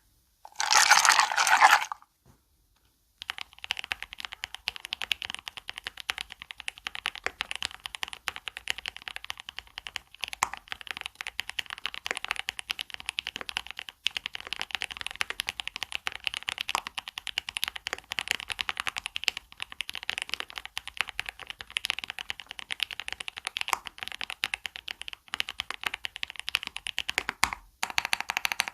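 Mechanical keyboard typed on quickly and continuously, a dense run of key clicks and clacks. It starts about three seconds in, after a brief loud burst and a moment of quiet, and pauses briefly near the end.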